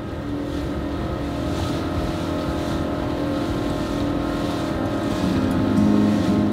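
Yamaha Enduro 40 two-stroke outboard motor running steadily at cruising speed, pushing a small wooden fishing boat, with the rush of its wake.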